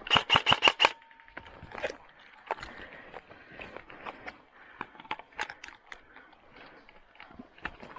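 Airsoft electric rifle firing: a quick burst of about seven shots at the start, then scattered single shots and short bursts, some loud and close, others fainter and farther off.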